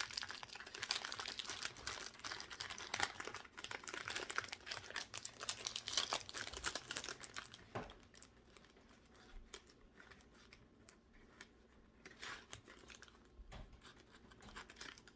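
Packaging being handled and torn open, a dense crinkling and tearing for about the first eight seconds, then quieter scattered rustles and clicks.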